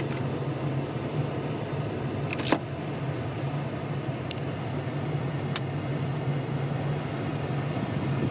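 Heater blower fan of a 1994 Toyota Hilux Surf running on high, a steady rush of air in the cabin. The dashboard's climate-control push buttons click four times as they are pressed, the loudest about two and a half seconds in.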